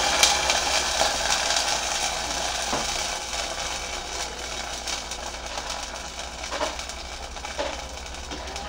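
Tomato purée sizzling in hot oil in a small saucepan, the sizzle slowly dying down, with a few faint clicks.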